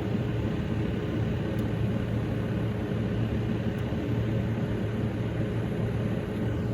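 Gas furnace running with its burners lit: a steady rumble of burner flame and draft inducer with a low hum. The burner flame is unstable, which the technician puts down to a failed heat exchanger.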